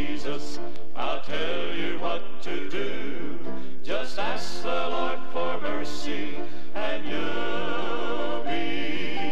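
Southern gospel male vocal quartet singing in harmony over instrumental backing, with held notes and vibrato, from a 1970 LP recording.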